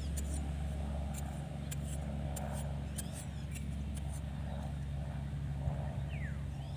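A motor running steadily with a low, even hum, with light high clicks and a few short chirps over it, one falling call near the end.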